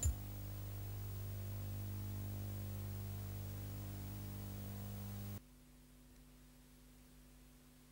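A steady low electrical hum with faint tape hiss on the audio track of an old 1-inch videotape, dropping suddenly to near silence about five seconds in.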